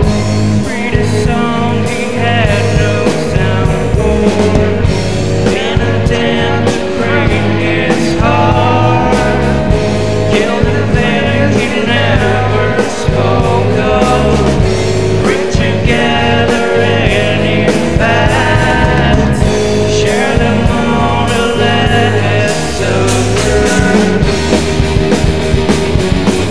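Alternative rock studio recording playing loudly: a full band with drums, bass and electric guitars, no pause.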